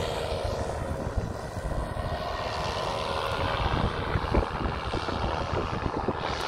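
Paramotor engine and propeller droning and fading as the powered paraglider flies off, with wind buffeting the microphone in low, uneven rumbles.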